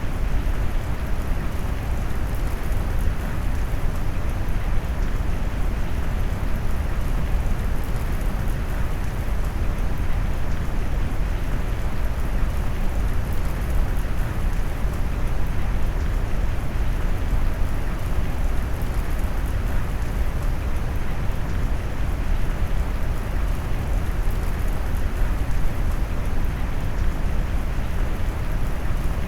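Steady rain-noise mix weighted toward deep low tones: an even, unbroken hiss with a heavy low rumble and softened highs.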